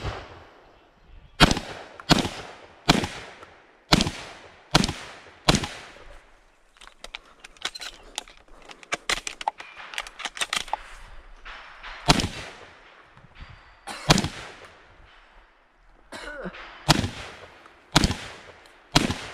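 Shotgun fired close at hand, about a dozen shots at roughly one a second in three strings. Between the first and second strings there are softer clicks and knocks as shells are loaded.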